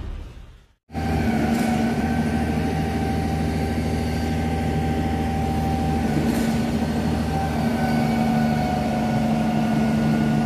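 Heavy machinery engine running steadily on a construction site, a constant hum with a few fixed tones over a noisy rumble. It starts about a second in.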